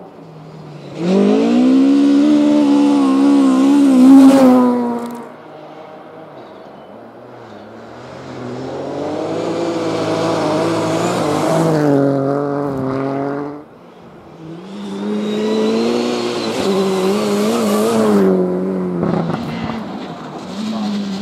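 Rally cars on a snowy stage driven flat out, engines revving hard and rising and falling in pitch through gear changes, with a hiss of snow thrown up by the tyres. There are three loud passes: one about a second in, one building from about eight seconds that cuts off suddenly near fourteen seconds, and another from about fifteen seconds.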